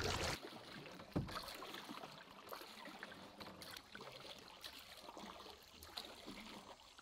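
Canoe being paddled on calm water: faint paddle dips, drips and water lapping, with one sharper knock about a second in.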